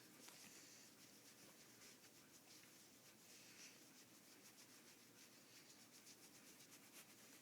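Near silence, with faint light rubbing and rapid soft scratchy ticks.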